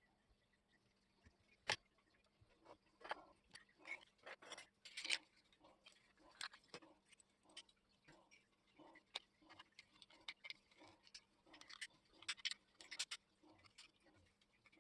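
Faint, irregular small clicks, taps and light scrapes, over a low steady hum.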